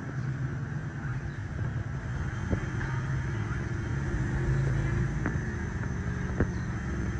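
A steady low rumble with a few separate sharp clicks or knocks.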